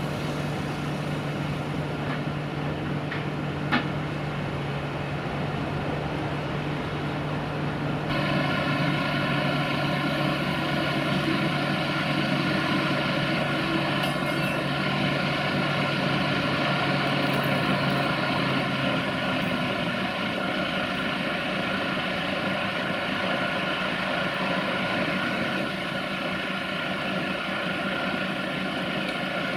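Heavy vehicle engine running steadily. About eight seconds in the sound turns abruptly louder and fuller, with a whine of several steady tones, as the hydraulic winch that pulls the tram onto the trailer is worked by its control lever.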